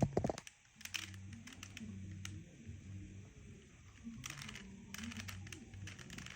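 Plastic Rubik's cube being twisted by hand, its layers turning with irregular clicks and clacks, one louder click right at the start.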